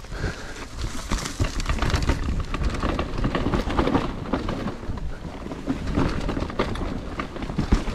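Mountain bike riding fast down a dirt forest trail: wind rushing over the camera microphone, tyres rolling over dirt and roots, and the bike rattling and knocking over the bumps.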